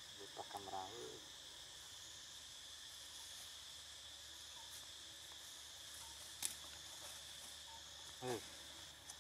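Steady high-pitched chorus of forest insects. A brief faint voice-like call sounds about half a second in and again near the end, with a single sharp click about six seconds in.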